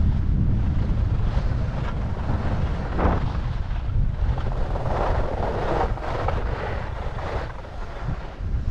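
Wind buffeting a GoPro's microphone on a downhill ski run, a steady low rumble, with the hiss of skis scraping across snow in a short burst about three seconds in and a longer one around five to six seconds in.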